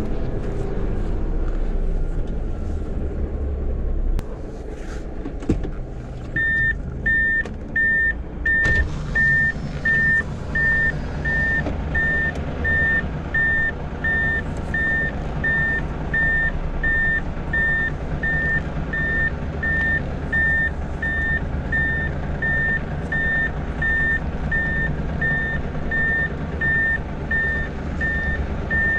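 Heavy truck's reversing alarm beeping in a steady rhythm, about three beeps every two seconds, starting about six seconds in, over the low running of the truck's diesel engine.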